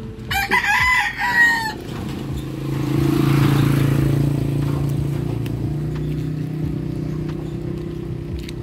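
A rooster crows once near the start, a loud call lasting about a second and a half. A steady low hum follows, swelling and then slowly fading.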